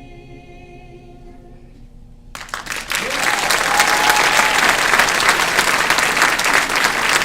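An a cappella choir's final held chord dies away about two seconds in, and audience applause breaks out and quickly grows loud.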